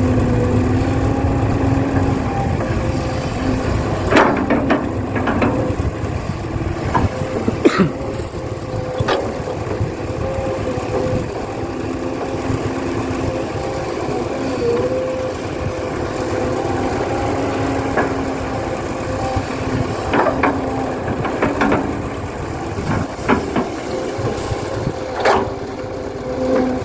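A remote-controlled model excavator and dump truck running, a steady motor hum with slight shifts in pitch, broken by several short knocks and scrapes as the excavator loads the truck.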